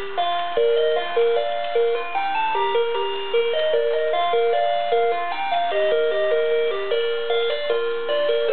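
Toy Christmas train set's built-in music chip playing a simple electronic melody, one clear note after another in a chime-like tone.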